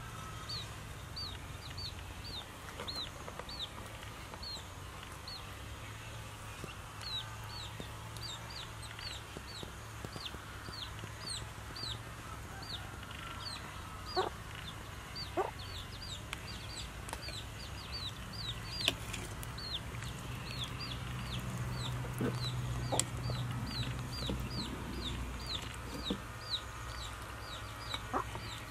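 Chicks peeping: a steady run of short, high, falling peeps, about two a second. A couple of light knocks come about halfway through.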